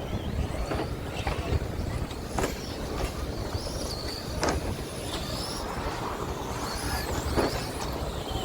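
Several 2WD short course RC trucks racing, their electric motors whining up and down in pitch as they speed up and slow down, with a few sharp knocks and a low rumble underneath.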